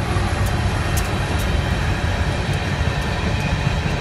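Freight train's diesel locomotives passing close by, a steady heavy rumble of engines and wheels with a few faint ticks, between blasts of the horn.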